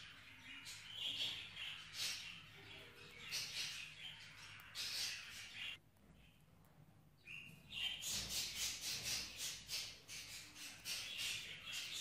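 Budgerigar giving rapid, repeated harsh chirps and squawks while restrained in the hand and dosed by syringe, with a short pause about six seconds in.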